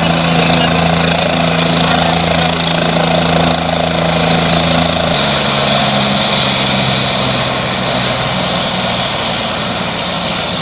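Light helicopter running on the helipad, its turbine engine and turning rotor giving a loud, steady hum with a high whine above it. The hum changes pitch abruptly about halfway through.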